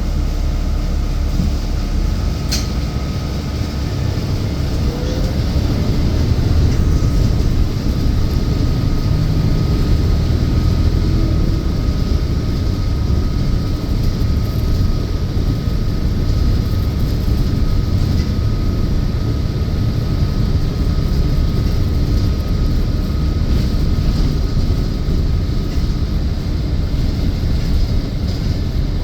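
Inside a moving city bus: a steady low rumble of the engine and road noise, with a faint steady whine above it. One sharp click sounds about two and a half seconds in.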